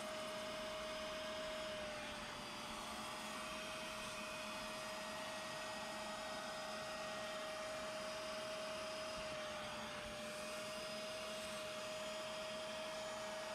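Carpet extractor's vacuum motor running with a steady whine as its upholstery hand tool is drawn across cloth car-seat fabric, sucking wet solution out of it. The pitch sags slightly twice, about two and a half seconds in and again about ten seconds in.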